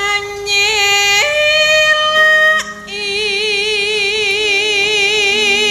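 A sinden, a female Javanese gamelan singer, singing unaccompanied long held notes: the first steps up in pitch about a second in and breaks off, then a long note with a wide, even vibrato.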